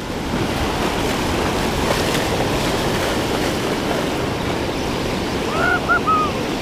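Ocean surf: waves breaking and washing up a shallow sandy beach in a steady rush.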